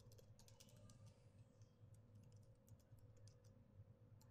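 Faint computer keyboard typing: a quick, irregular run of key clicks over a low steady hum.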